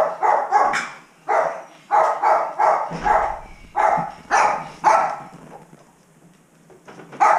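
A dog barking over and over, about two barks a second, tailing off after about five seconds, with one last bark near the end.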